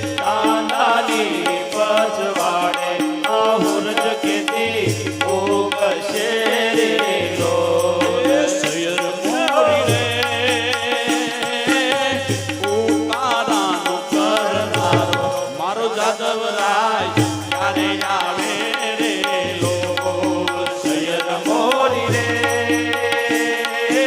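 Devotional song with singing over tabla-like percussion and a low bass note that repeats about every two seconds.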